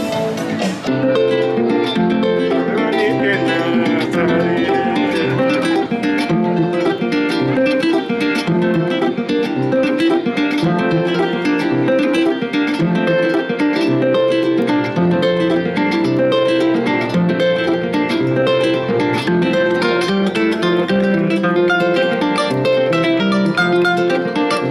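Kora, the West African gourd-bodied harp-lute, played solo: a running plucked melody over repeating bass notes.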